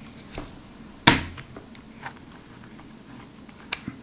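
Faint clicks of a small hand driver turning in the grip screw of a Browning Buck Mark .22 pistol, with one sharp knock about a second in.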